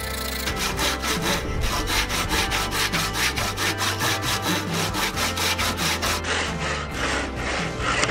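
Flush-cut handsaw sawing with rapid, even back-and-forth strokes, trimming the end of a wedged through-tenon flush with the hardwood top.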